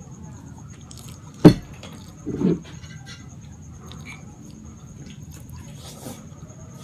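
Close-up mouth sounds of someone eating fettuccine carbonara: a sharp click about a second and a half in, a short lower wet sound just after, and faint small ticks of chewing.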